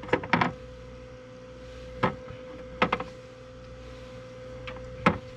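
Chicken eggs being set into a plastic incubator tray: light knocks of eggshell and fingers against the plastic, a quick cluster at the start, then single knocks about 2, 3 and 5 seconds in. Under them the incubator's fan hums steadily.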